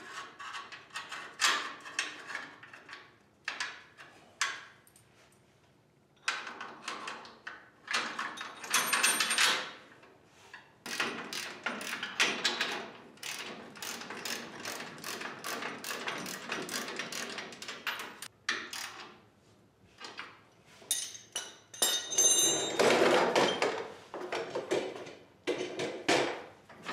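Steel tow bar being fitted by hand to the bumper's mounting brackets: irregular clanks, scrapes and rattles of metal on metal in bursts with short pauses, and a brief ringing clank a little past the middle.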